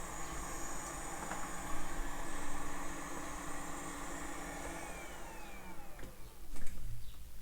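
Small electric blower fan running with a steady whir, then switched off about five seconds in and spinning down with a falling pitch; a few light clicks near the end.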